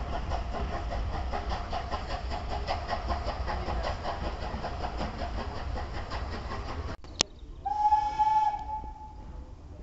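A departing train rumbles and clatters rhythmically for about seven seconds. Then the sound cuts, and a steam locomotive's whistle blows once, a single steady note held for just under a second.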